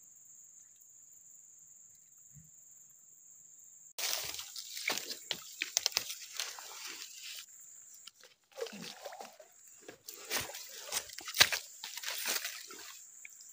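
A steady high insect drone, like crickets, over an otherwise quiet bank; about four seconds in, loud irregular rustling and crackling close to the microphone takes over, the sound of handling and brushing against it, with the insect drone still faintly under it.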